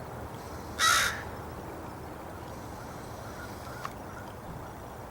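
A crow gives a single short, harsh caw about a second in, with a faint tick a few seconds later.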